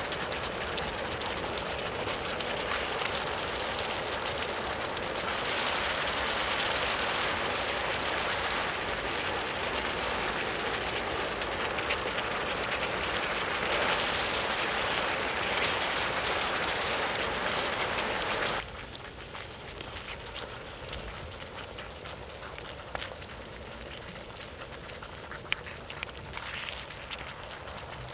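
Red-marinated beef short ribs sizzling on a hot cooking surface. The loud sizzle cuts off suddenly about two-thirds of the way through, leaving a quieter sizzle with scattered crackles.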